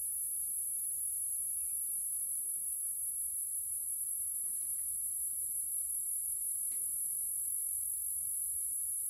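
Steady, high-pitched chorus of insects droning, with two faint clicks in the middle.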